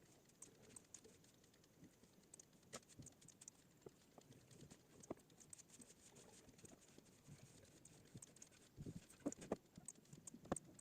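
Near silence with faint, irregular clicks and taps from someone working at a computer, a few close together near the end.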